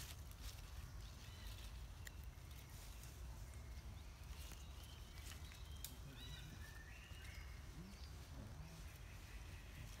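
Faint forest ambience: a steady low rumble with a few scattered small clicks, and from about four seconds in a run of short, high animal chirps that step up and down in pitch.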